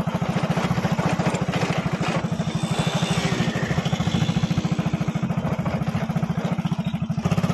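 Motorcycle engine running steadily with a fast, even pulse as the bike climbs a dirt slope, with wind noise on the microphone.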